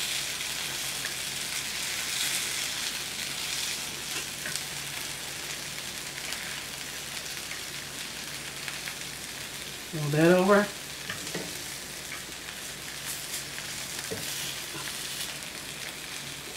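Birria tacos frying on a cast-iron griddle: a steady sizzle throughout, with a short burst of a voice about ten seconds in.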